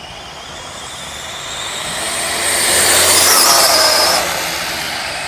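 Electric RC speed-run car's motors whining at high speed with tyre hiss, approaching, passing close about three seconds in with a slight drop in pitch, then receding.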